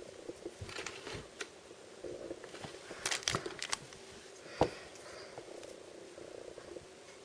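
Hands handling plastic blind-bag packaging and a small toy: scattered crinkles and sharp clicks, a cluster about three seconds in and one louder click a second and a half later, over a steady low rough rasp.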